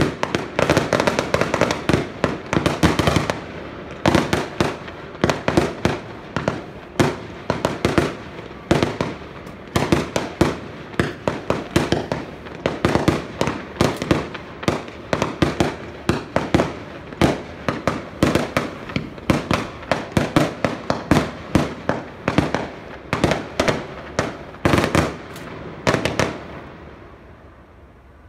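Fireworks display: aerial shells bursting in a dense string of bangs and crackle, several a second, densest in the first few seconds, thinning out and stopping about two seconds before the end.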